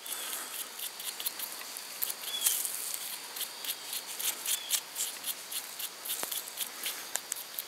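Rubber-gloved fingers working anti-seize paste onto the threads of a belt tensioner bolt: a soft scratchy rubbing made of many small, irregular clicks.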